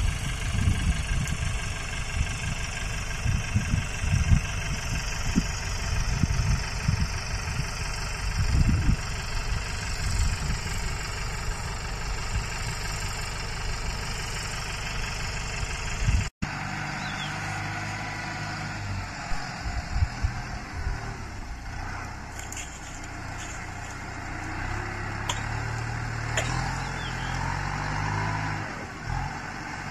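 Farm tractor engine running as it works a dry field with a disc harrow, its hum shifting in pitch with the load. Wind buffets the microphone with low gusts in the first half, and the sound drops out for an instant about halfway through.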